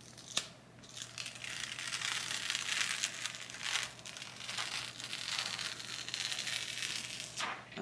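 Clear PET DTF transfer film being peeled off a cooled heat-pressed print on a fleece hoodie: a continuous crinkling, crackling rustle as the plastic sheet pulls away from the design, after a single sharp click about half a second in.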